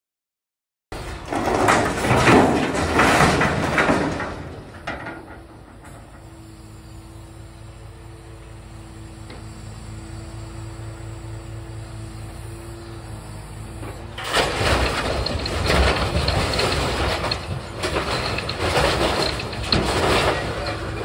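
Truck-mounted hydraulic grab crane working scrap metal, starting about a second in: loud clattering and scraping of metal scrap in two stretches, near the start and over the last third, with the steady hum of the truck's engine and hydraulics between them.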